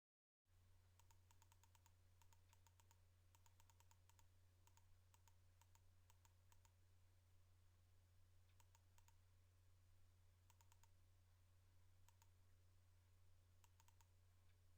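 Near silence: a faint steady low hum with scattered clusters of rapid, faint clicks.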